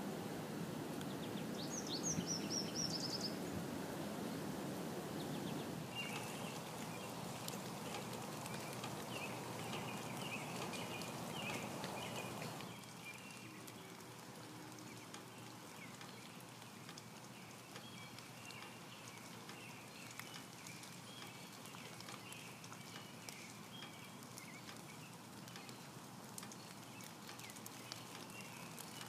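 Outdoor ambience: small birds chirping over a steady hiss, with a short falling trill about two seconds in and repeated short chirps from about six seconds on. The hiss drops off about thirteen seconds in.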